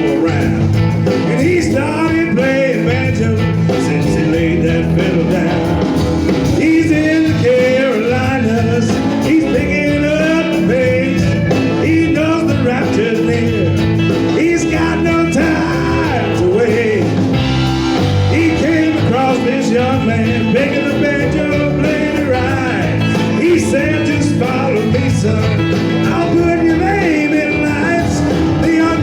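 Live band playing a song with a lead singer, at a steady, loud level throughout.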